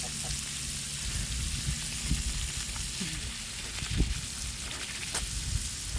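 Water running from a garden hose, a steady hissing spatter, with a few low thumps, the loudest about four seconds in.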